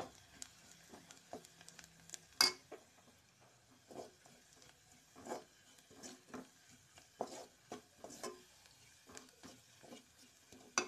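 A spoon stirring and scraping fried onions and spice masala in an aluminium pot, with irregular clinks and scrapes against the pot's side and a louder knock about two and a half seconds in.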